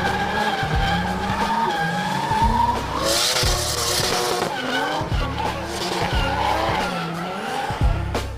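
Toyota JZ inline-six in a drifting Nissan 240SX, revving up and down under throttle while the tyres squeal and hiss, loudest about three seconds in. Music plays underneath.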